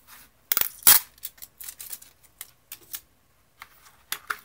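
Clear plastic case of a pen-type pH tester being handled and opened: a cluster of sharp plastic clicks and knocks about half a second in, then lighter scattered ticks and taps.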